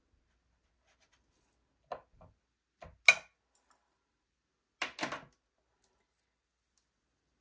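A few short knocks and clicks of tools and objects being handled and set down on a hard work surface, the sharpest about three seconds in and a quick rattling pair about five seconds in.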